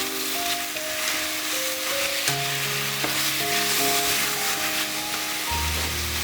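Food sizzling as it fries in a hot pan, stirred now and then, over background music with slow held notes.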